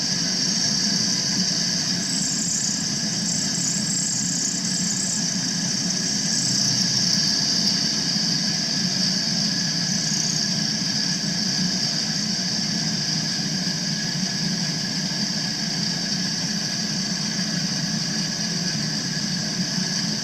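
Milling machine running a 3/8-inch end mill through a cut: a steady machine hum with a high-pitched cutting whine over it.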